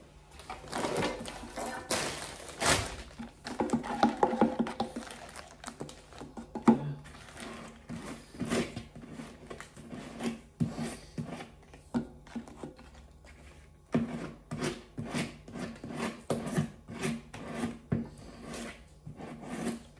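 Metal filler knife scraping all-purpose filler out of a plastic tub and spreading it over a paper-covered balloon: a run of louder scrapes and knocks in the first few seconds, then short strokes at about two a second.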